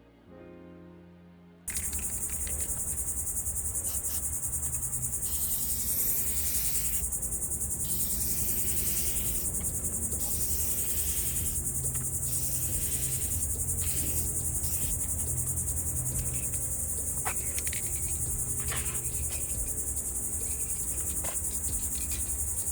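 Electric orbital sander running steadily on a headlight lens: a continuous high whine over a low motor hum, starting suddenly about two seconds in.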